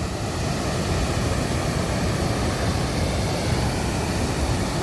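Waterfall running: a steady roar of falling water, with no let-up.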